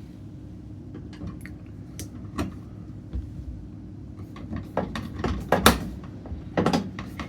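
Scattered light clicks and knocks of metal parts and a hand tool as the door lock is screwed back into the front of a front-loading washer, busiest in the second half, over a steady low hum.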